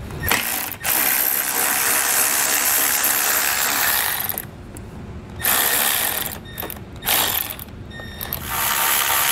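Power ratchet running in bursts as it backs out the 10 mm bolts holding down the air filter box: one long run of about three and a half seconds, then three shorter ones.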